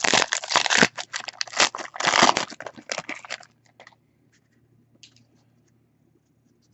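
Wrapper of a baseball card pack crinkling and tearing for about three and a half seconds, then a few faint taps.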